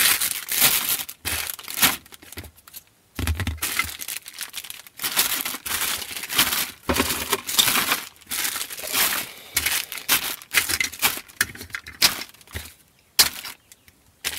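Plastic packaging crinkling and rustling in irregular bursts as it is handled, with small clicks and knocks and a short dull thump about three seconds in.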